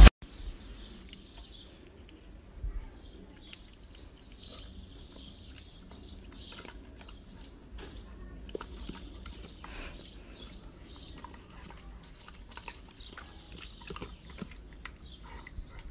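Airedale terrier biting and chewing a slice of watermelon held out by hand: wet, crisp crunches and smacking in short, irregular bursts.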